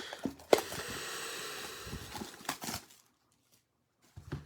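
Panini Encased box packaging being torn open and handled: rustling and scraping with a few sharp clicks, which stops about three seconds in, then one more click near the end.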